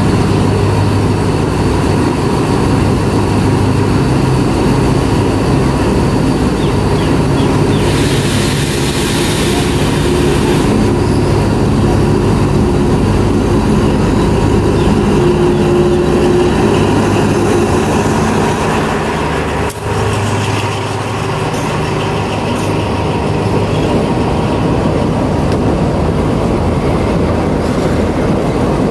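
Thai State Railway Alsthom diesel-electric locomotive running steadily as it hauls a passenger train slowly over a steel viaduct, followed by its carriages rolling past close by.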